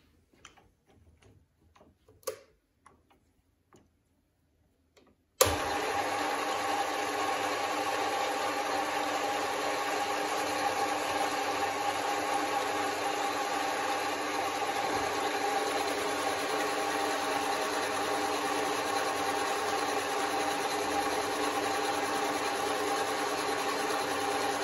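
Metal lathe switched on about five seconds in, then running steadily with an even motor and gear whine; a few faint clicks of handling come before it.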